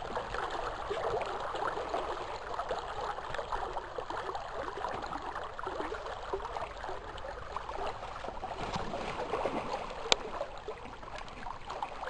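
River water running steadily with a gurgling rush. A single sharp click about ten seconds in.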